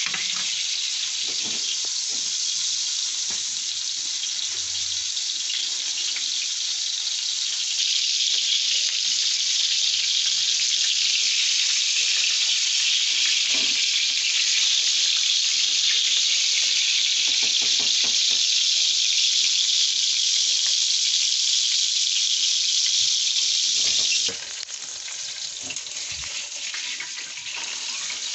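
Ground-beef burger patty sizzling in a frying pan, a steady hiss that grows louder about eight seconds in and drops suddenly near the end, with a spatula now and then scraping and tapping the pan.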